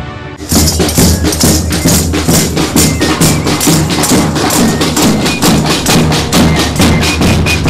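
Music driven by a fast, steady percussion beat of about four to five strikes a second over a steady bass line. It starts after a short break about half a second in.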